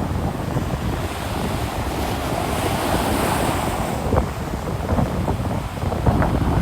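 Ocean waves breaking and washing up on a beach, with wind buffeting the microphone as a low rumble.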